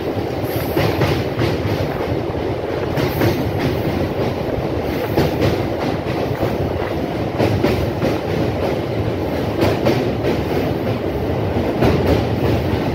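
Electric multiple-unit local train running over a steel truss bridge: a steady rumble with repeated clacks of the wheels over the rail joints.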